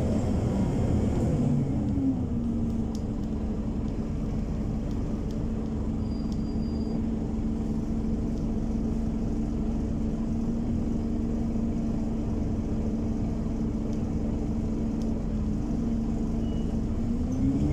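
Scania OmniCity 12 diesel city bus heard from inside the cabin: the engine's rumble with a steady whine over it, which the title puts down to the loud cooling fan. The pitch drops about two seconds in, holds steady, and climbs again near the end as the engine picks up.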